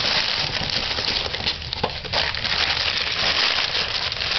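Plastic and paper packaging crinkling and crackling as a small child handles a wrapped gift, with a few sharper snaps near the middle.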